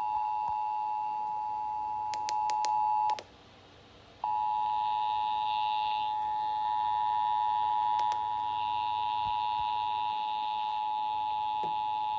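Emergency Alert System two-tone attention signal, a steady dual tone. It cuts off about three seconds in and, after a pause of about a second, starts again and holds through to the end.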